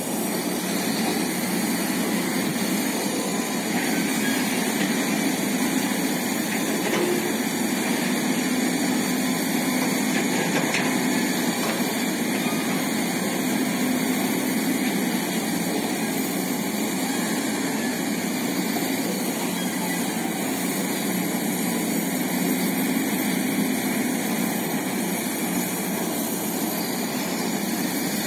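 Heavy diesel machinery running steadily, a constant engine drone with no revs or knocks.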